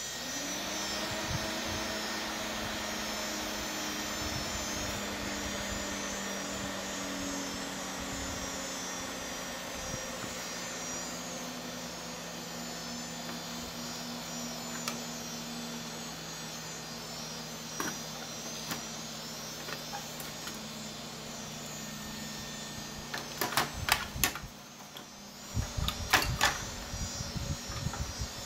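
Large CPU cooling fans on a dual-Xeon workstation motherboard run at full speed with a steady whir and a low hum. They come up to speed right at the start and run flat out because the temperature sensor has been removed. Near the end, a few sharp knocks and plastic clatter come from the fan shroud being handled.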